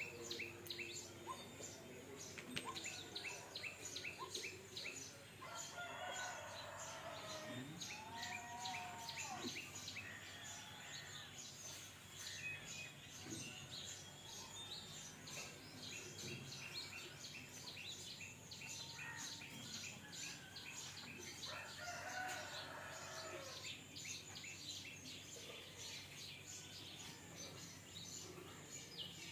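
Small birds chirping in quick, repeated high notes, and a rooster crowing twice, about six seconds in and again about twenty-two seconds in.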